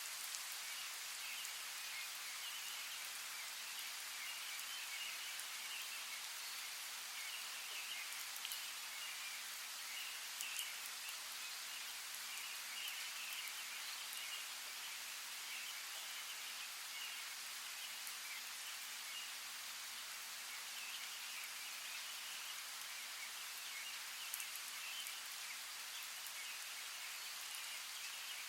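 Forest ambience: a steady hiss of falling or running water, with a continuous chirping chorus of small creatures behind it and a few scattered drips or clicks.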